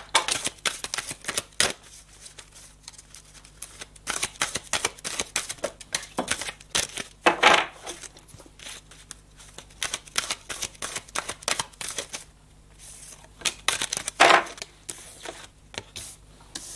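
Oracle cards being shuffled and handled: a run of quick papery clicks and flicks, with two louder brief rustles about seven and fourteen seconds in.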